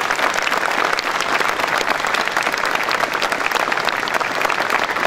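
Audience applause: many people clapping steadily, a standing ovation.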